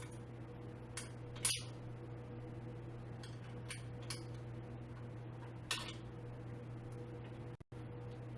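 A few scattered short clicks and knocks of metal chair parts and hand tools being handled during assembly, the loudest about a second and a half in, over a steady electrical hum. The sound cuts out for a moment near the end.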